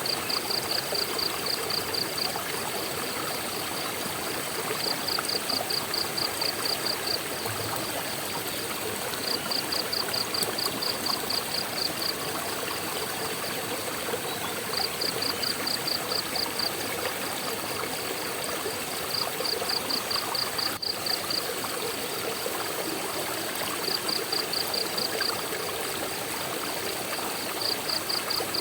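Steady rush of flowing water from a waterfall-fed stream. An insect chirps over it in trains of about five quick pulses a second, each train lasting around two seconds, repeating every four to five seconds.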